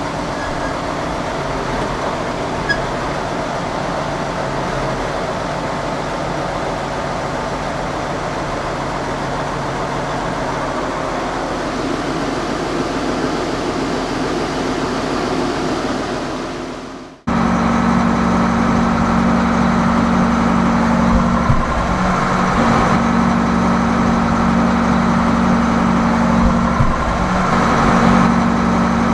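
Farm tractor engine running steadily under load while a grain cart is being unloaded. About two-thirds of the way through, the sound breaks off abruptly and gives way to a louder, steadier engine drone.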